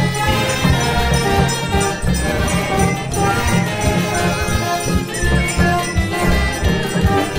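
Instrumental break of a chilena, a Oaxacan folk dance song: pitched melody notes over a steady pulsing bass.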